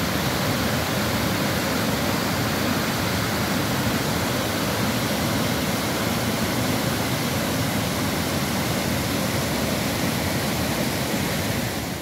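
Water rushing steadily over the low rock ledges of a river waterfall, an even unbroken rush with no other sound.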